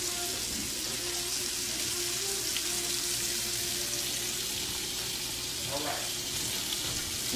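Flour-dredged shrimp frying in olive oil and butter in a skillet, a steady even sizzle.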